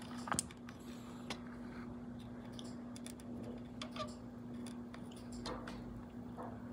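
Faint, scattered small clicks and ticks as a soldering iron is worked against copper desoldering braid on a circuit board, wicking up solder to free a bulging capacitor. A steady low hum runs underneath.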